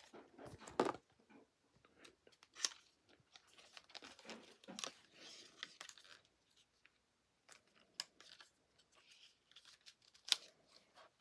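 Faint rustling, crinkling and tearing of an Apple Watch's cardboard and paper packaging as it is opened and handled, with scattered clicks and one sharper tap near the end.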